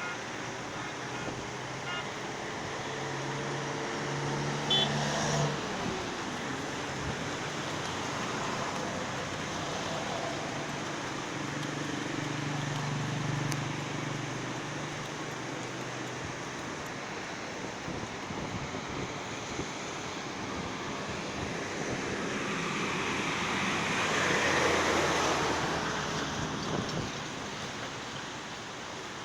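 Steady rush of a rain-swollen river in flood, with motor vehicles passing: an engine hum comes and goes twice, and a louder vehicle pass swells a few seconds before the end.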